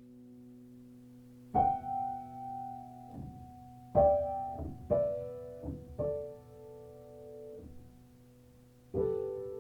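Slow solo piano music: a soft low chord held at first, then single struck chords that ring and fade, about five of them spread over the passage.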